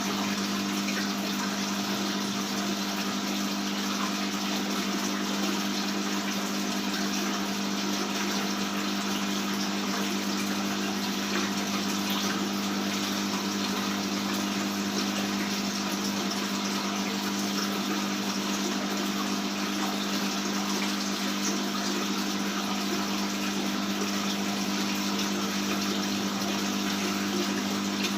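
Aquarium pump and filter running, with a steady hum under continuous water splashing and flowing.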